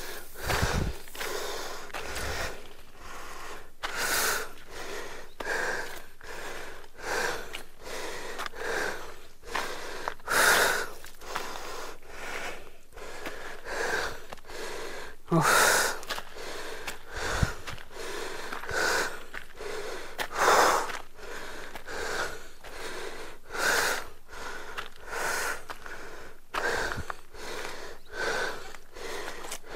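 A person panting hard, out of breath from climbing a steep hill path, with a loud breath about every second or so. A few low thumps come in between.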